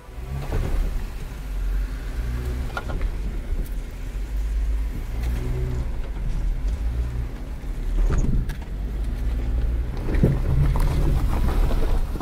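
Off-road Jeep's engine running at low revs as it crawls along the trail, with a steady low rumble and a few sharp knocks, about three and eight seconds in and again near ten.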